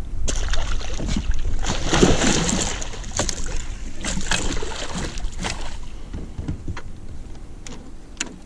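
A large zander thrashing and splashing at the surface as it is scooped into a landing net, with a run of sharp splashes loudest about two seconds in and thinning out towards the end, over a steady low rumble.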